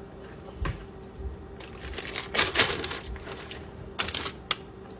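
Paper food bag crinkling and rustling as it is handled, in a few crackly bursts, the longest about two to three seconds in and a shorter one near the end.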